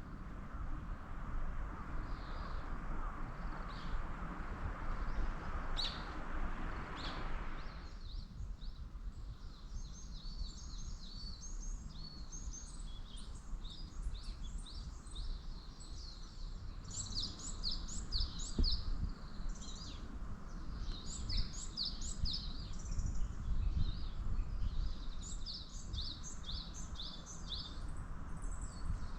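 Small songbirds chirping and singing in quick phrases of rapid high notes, over a low steady outdoor rumble. For the first several seconds a steady hiss sits under a few chirps, then cuts off abruptly, and the birdsong grows busier.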